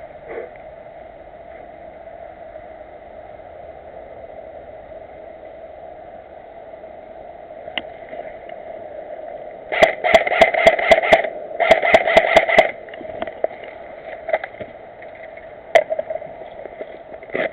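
Airsoft gun firing on full auto in two short bursts of rapid shots, about five a second, over a steady hiss, then a single shot a few seconds later.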